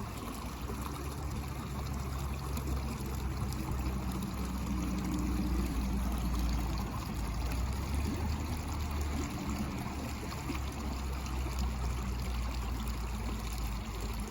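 Steady outdoor background of traffic from a busy street: a constant low rumble under a broad hiss, with engine hum swelling twice, about four seconds in and again near nine seconds.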